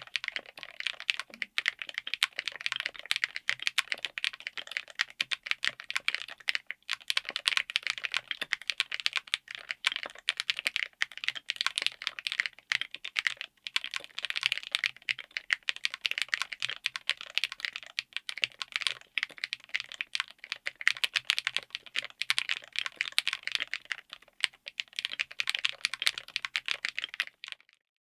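Fast, continuous typing on a mechanical keyboard built on an FR4 plate in an aluminum Tofu60 case: a dense stream of crisp keystrokes with a couple of brief pauses, stopping just before the end.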